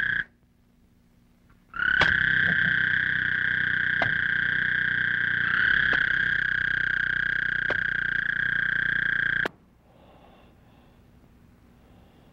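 Steady high-pitched trilling of frogs, with a few faint clicks. It breaks off just after the start, comes back about two seconds in, and cuts off suddenly near the end, leaving only faint hiss.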